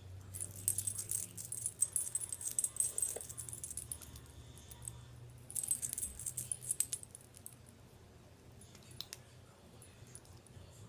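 Light metallic jingling, like small jewelry shaken, in two bursts of a few seconds each, the second starting a little after halfway, as a hand waves in front of the mouth; a few faint clicks follow near the end.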